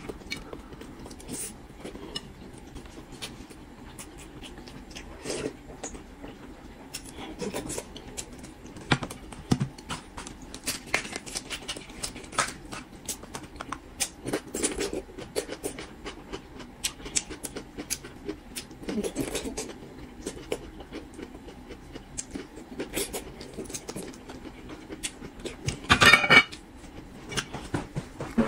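Close-miked eating: chewing and biting boiled bamboo shoots, with chopsticks clicking on the plate and sauce bowl, many short sharp sounds throughout. A louder, brief rustling noise about two seconds before the end.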